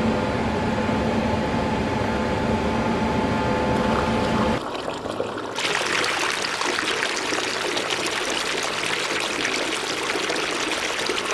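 Basement sump pump running, first a steady electric motor hum. About four and a half seconds in, the hum gives way to a steady rush of pouring, splashing water. The pump is going off about every two minutes as snowmelt raises the groundwater.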